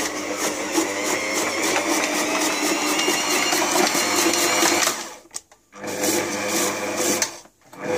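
Silvercrest SKM550B1 food processor motor running with its coarse slicing disc, cutting a carrot, a steady whine with a fast, even clatter over it. It stops briefly about five seconds in and again near the end, starting up again each time.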